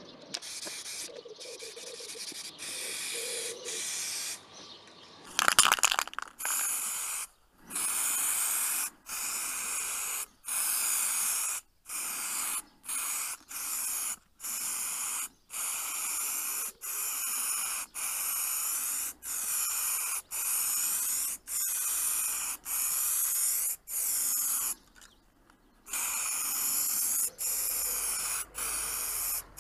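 Aerosol spray can spraying paint in a long run of short passes, each a hiss of about a second, broken by brief gaps. A short loud clatter comes about five seconds in.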